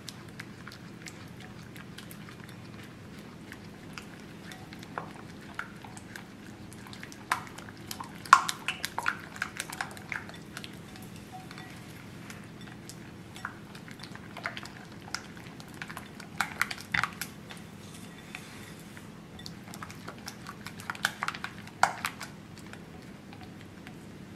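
Silicone spatula stirring and scraping thick chocolate batter in a glass bowl, with clicks and scrapes against the glass that come in clusters. The loudest is about eight seconds in.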